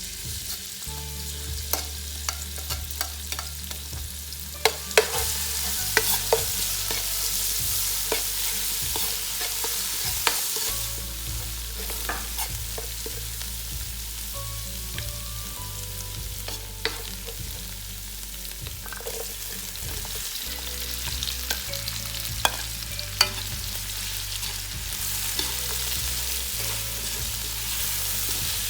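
Food frying with a steady sizzle in a hot pan while being stirred. A utensil clicks and knocks against the pan, sharpest about five and six seconds in and again near twenty-three seconds.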